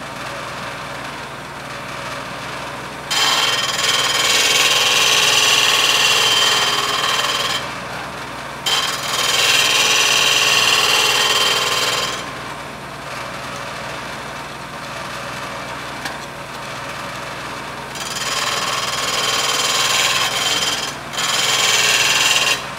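Shopsmith spinning an abrasive sanding disc while a steel lathe gouge is ground against it in a sharpening guide. There are four loud bouts of hissing grinding, a few seconds each: about three seconds in, about nine seconds in, and twice near the end. Between them the machine runs with a steady hum.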